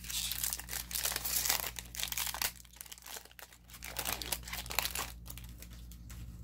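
Foil wrapper of a Core 2021 collector booster pack crinkling as it is torn open and the cards are slid out. The crinkling is dense for the first couple of seconds, then comes in short bursts about four to five seconds in.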